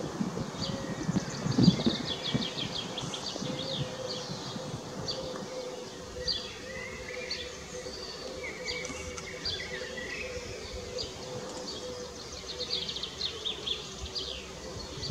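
Small songbirds chirping and singing, many short high chirps and quick trills, over a faint steady hum, with low rustling in the first couple of seconds.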